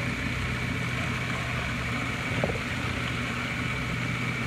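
Magimix food processor motor running with a steady hum and a thin whine while olive oil is poured in through its feed tube, blending hummus.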